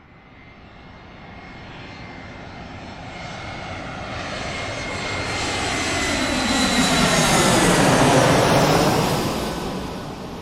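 Airplane flying over: its engine noise grows steadily louder, is loudest about eight seconds in as it passes, then starts to fade as it moves away.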